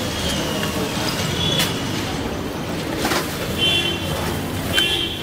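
Street traffic noise, a steady rumble, with a few light clicks and a couple of short high horn toots in the second half.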